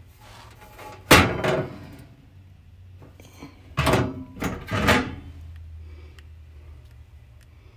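Hinged metal cover of a Magic Chef RV cooktop being handled: one loud clank about a second in, then three more clanks close together about four to five seconds in. A faint steady low hum runs underneath.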